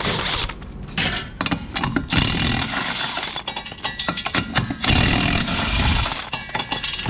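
A DeWalt XR cordless impact wrench on a long extension hammering at a Dirt Late Model's wheel lug nuts. It goes in about four bursts of rapid rattling, with short clicks between them.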